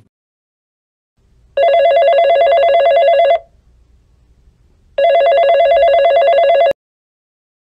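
Telephone ringing twice, each ring a rapid warbling trill nearly two seconds long with a short pause between. The second ring cuts off suddenly as the call is answered.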